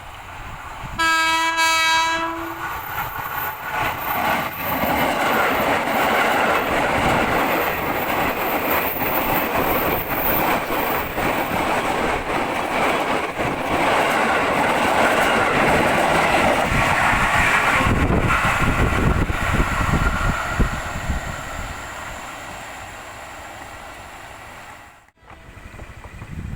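A KRL Commuter Line electric train gives one short horn blast on a single tone as a greeting, then runs past close by with a heavy rumble and wheel clatter. The clatter lasts about twenty seconds and fades out before the sound cuts off near the end.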